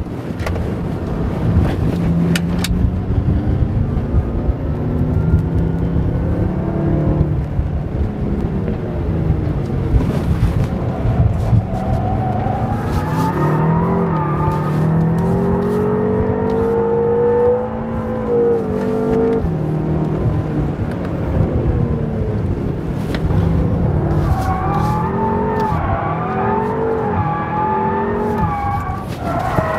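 BMW M5 engine revving hard, its pitch rising and falling repeatedly, as the car drifts with its rear tyres spinning and sliding in clouds of smoke.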